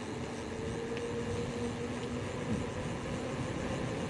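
Loaded gravel bike riding along, its tyres rolling with a steady hum over constant road noise.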